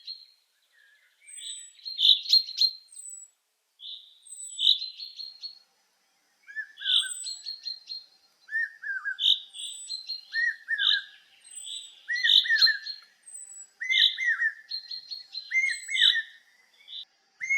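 Several songbirds singing and calling at once: bursts of chirps mixed with a thin, high, short falling note repeated every second or so and a lower run of down-slurred calls, which come more often after the first few seconds.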